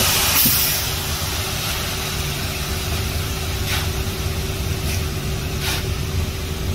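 Concrete mixer truck's engine running with a steady low rumble and hum while wet concrete slides down the truck's chute. A hiss in the first second fades out, and a few faint short scrapes come later.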